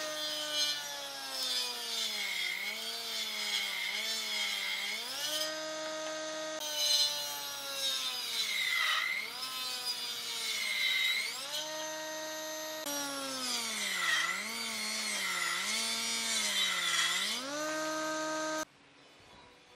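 Circular saw blade of a combination woodworking machine ripping a thick wooden slab: the motor's steady whine sags in pitch each time the blade bogs in the cut and recovers between pushes, over three cuts. The sound stops abruptly near the end.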